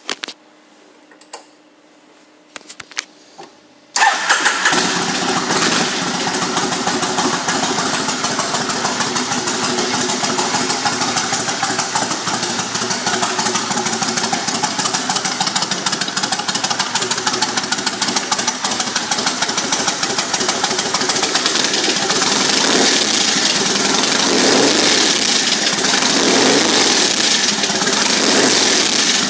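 A few clicks, then about four seconds in the carbureted 1500cc V-twin of a 1998 Kawasaki Vulcan 1500 Classic, fitted with a Cobra exhaust, fires up abruptly and settles into a steady idle.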